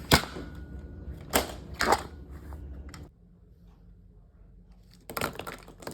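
A sharp click just after the start, then two louder knocks about a second and a half in, half a second apart. After that it goes nearly quiet, and a quick run of clicks comes near the end.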